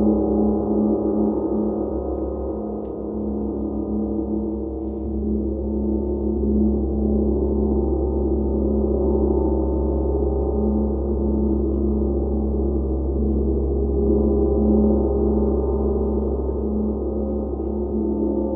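Large symphonic and Chau gongs played with soft felt mallets, ringing in one continuous deep wash of many overlapping tones that the steady strokes keep going. A low hum within it pulses about twice a second.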